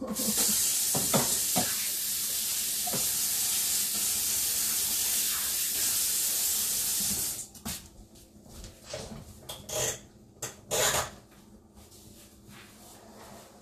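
Kitchen faucet running as hands are washed under it: a steady rushing hiss that comes on at once and shuts off suddenly about seven seconds in, followed by a few light knocks.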